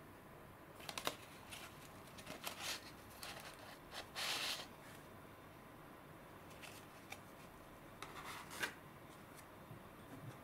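Cardboard tea packaging and a paper tea bag being handled: several short crisp rustles and snaps, and a longer tearing rustle about four seconds in as a die-cut cat-shaped tea-bag tag is pulled free of its card, then more light paper rustling.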